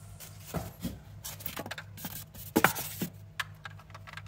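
Hands lifting an alloy model car out of its styrofoam packing tray and turning it over: scattered rubs, scrapes and light knocks of foam and metal, with one louder one about two and a half seconds in.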